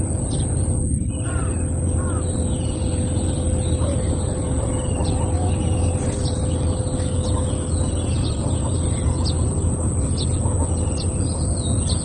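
Birds chirping now and then, in short scattered calls, over a steady low rumble and a constant high-pitched whine.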